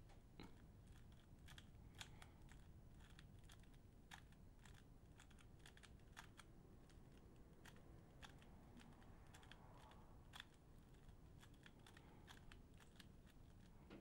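Faint, irregular plastic clicks, a few a second, from the layers of a 3x3 speedcube being turned by hand. This is a run of quick turns: the righty and lefty sequences, three times each, performed to swap two last-layer corners.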